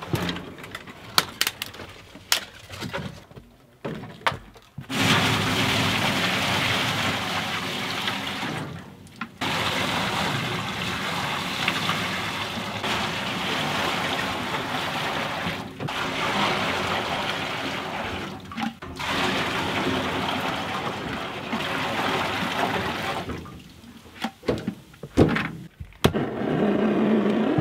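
Buckets of cold maple sap poured into the stainless steel pan of a wood-fired evaporator: four long splashing pours with short breaks between buckets. Before them, knocks of firewood being loaded into the firebox, and near the end a propane torch being lit under the kindling.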